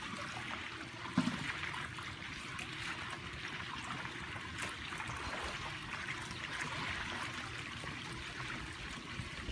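Steady trickling and lapping of swimming-pool water, with one brief low thump about a second in.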